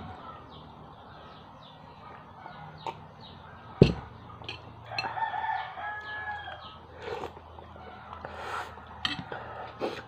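A rooster crows once, about five seconds in, a held call of roughly a second and a half, with short high chirps scattered around it. A single sharp knock just before the crow is the loudest sound.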